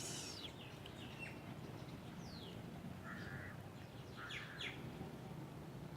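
Faint bird chirps: a few short calls, some sweeping down in pitch, several in quick succession a little past the middle, over low steady background noise.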